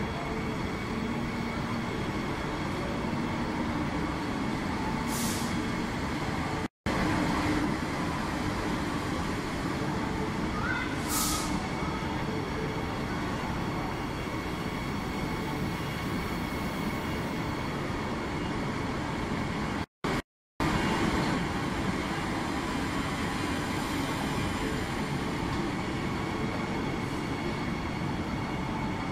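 Queensland Rail electric multiple-unit train rolling in along an underground platform: a steady rumble of wheels and motors, echoing in the station, with short high hisses about five and eleven seconds in. The sound cuts out briefly twice.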